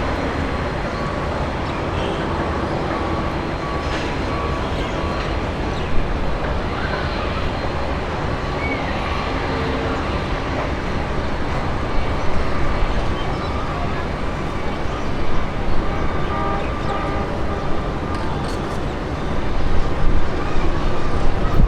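Steady, loud rumble of engine and traffic noise with a few faint steady tones running through it and some short louder peaks in the second half.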